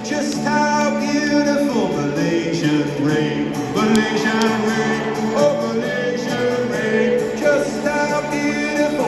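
Live pop-rock song heard from a stadium's stands: a male voice sings a slow melody over acoustic guitar, with the big room's echo.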